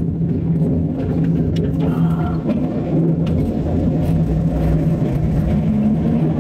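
Heavy diesel machinery running: a steady low engine hum and rumble, with a few faint clicks and knocks.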